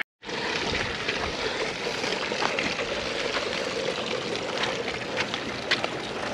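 Heavily loaded garden utility wagon pulled along a concrete walkway: its wheels give a steady rolling noise, with scattered small rattles and clicks from the cart.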